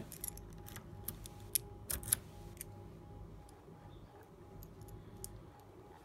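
Cross-shaped keys on a key ring clicking and jingling as a key is worked in and drawn out of a small brass cruciform lock. There is a quick run of sharp clicks in the first two seconds or so, then only a few faint ones.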